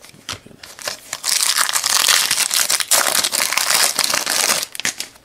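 A foil trading-card pack wrapper crinkling loudly for about three and a half seconds as it is torn open and peeled off the cards, after a few light clicks from cards being handled in the first second.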